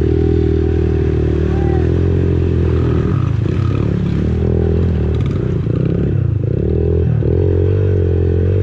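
Pit bike engine running through shallow swamp water, steady for the first few seconds and then rising and falling in pitch with the throttle, with water splashing around the wheels.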